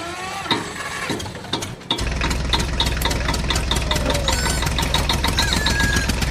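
A vehicle engine starts up about two seconds in and runs steadily with a fast, even ticking, after a few short chirping calls.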